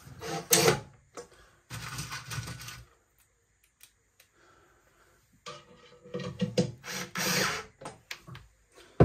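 Cordless drill-driver driving screws through a metal shelf bracket into a wooden shelf, in short runs of a second or so, with a quiet pause of a couple of seconds in the middle.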